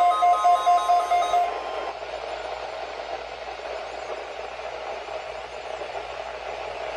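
NOAA Weather Radio alert tone: a steady tone with rapidly pulsing beeps over it. It cuts off about a second and a half in and gives way to steady radio static, a failed alert-test transmission.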